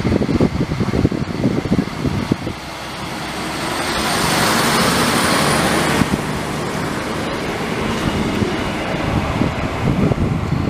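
A regional railcar train running past close by along the platform, with a steady low rumble that swells into a loud rush about four to six seconds in as the cars go by, and a faint high squeal during the loudest part.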